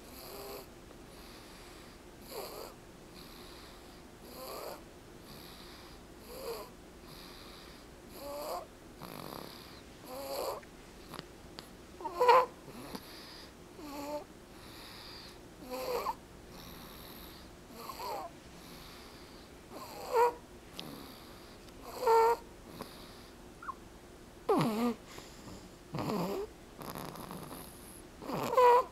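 Snoring in deep sleep: a short, pitched snore about every two seconds, some louder than others.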